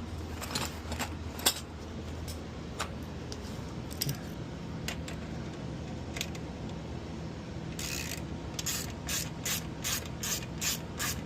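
Ratchet wrench clicking as a motorcycle's chain adjuster bolt is turned: a few scattered clicks at first, then a steady run of about three clicks a second near the end.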